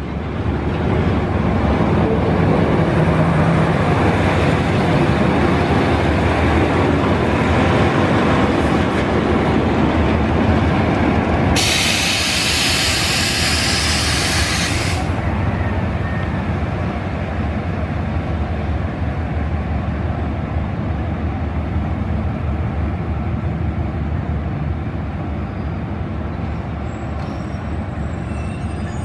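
Diesel passenger train and locomotive running, a steady loud rumble. About twelve seconds in, a loud hiss of air lasts about three seconds.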